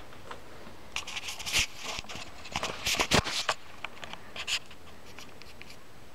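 Handling noise from a camera being picked up and moved: rustling with a run of knocks and bumps from about a second in until near the middle, the loudest a thump about three seconds in.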